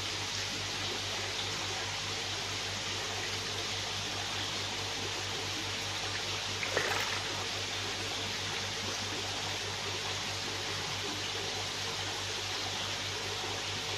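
Steady rush of water circulating in sturgeon farm tanks over a low steady hum, with one brief knock about seven seconds in.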